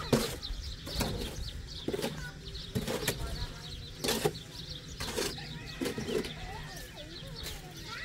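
A series of sharp strokes, roughly one a second and each with a brief rush of noise, over many small birds chirping.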